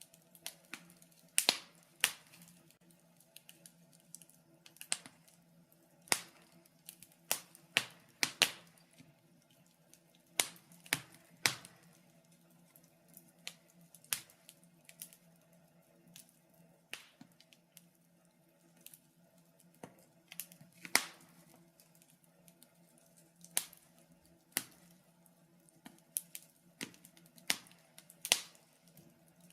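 Wood fire in a fireplace crackling, with irregular sharp pops and snaps every half second to two seconds over a faint steady hum.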